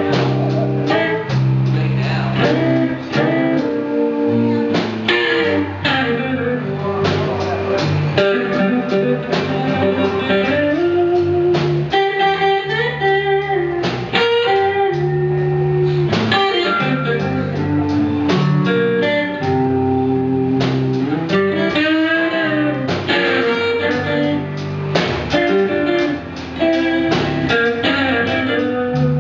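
Background music: a guitar-led, blues-style track with a bass line and a steady beat.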